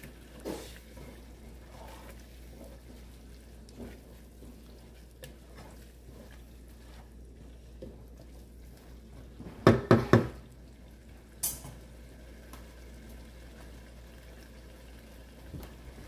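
Wooden spatula knocking against a metal cooking pot: a few light knocks while stirring, then a quick run of four sharp knocks about ten seconds in, followed by one short high click.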